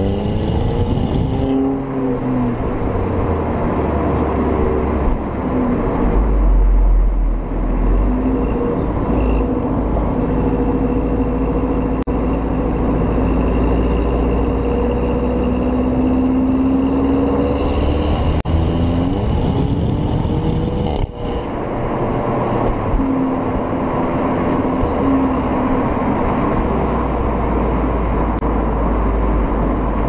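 Stock twin-exit exhaust of a 2009 VW Golf Mk6 1.4 TSI turbo petrol with 7-speed DSG, heard at the tailpipes. The revs rise under hard acceleration and drop at an upshift about a second and a half in, then hold steady. Near the end of a second climb there is one sharp crack on the upshift about 21 seconds in (a DSG fart), followed by steady running.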